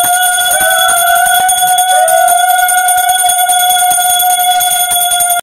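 Small brass puja hand bell rung rapidly and without pause: a fast clatter of clapper strikes over a steady high ringing. It stops abruptly at the end.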